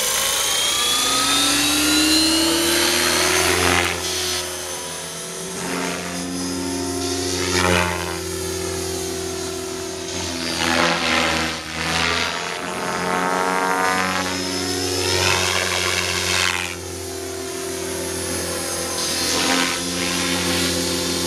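Align T-Rex 600E electric RC helicopter in flight: the whine of its motor and rotor blades rises in pitch as it climbs away in the first couple of seconds. Through its 3D manoeuvres the pitch and loudness keep swelling and dipping as it swoops around overhead.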